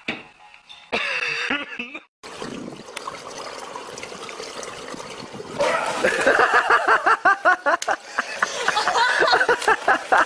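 Water splashing in a swimming pool, joined about halfway through by loud, rapid, excited human voices.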